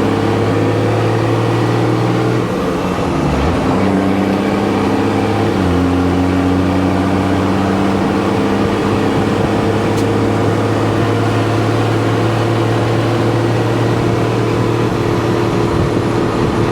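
A vehicle engine running steadily while being driven. Its note breaks about three seconds in and steps down to a new pitch about six seconds in, as gears are changed.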